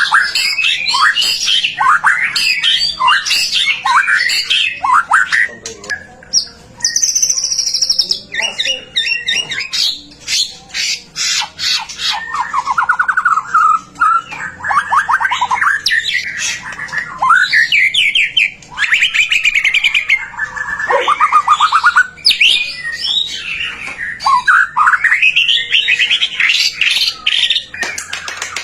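White-rumped shama (murai batu) in full, loud song: a continuous stream of varied phrases of sweeping whistles, rapid trills and short sharp notes, broken by brief pauses.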